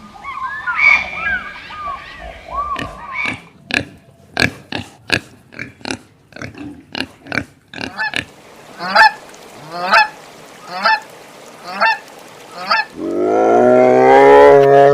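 Farm animal calls: short chirping calls, then a quick run of sharp clicks at about three or four a second, then five honking calls about a second apart. Near the end comes a long, loud, low call that rises a little in pitch.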